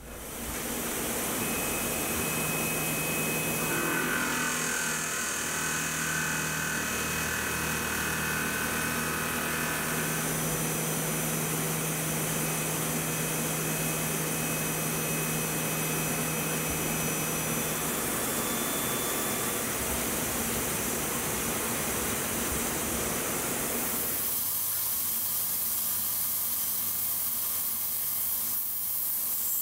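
Tormach PCNC 770 CNC mill spindle running and cutting a round metal blank held in a three-jaw chuck, a steady machining noise with a whine through the first half. From about 24 seconds in, a high, steady hiss of coolant mist from the nozzle takes over.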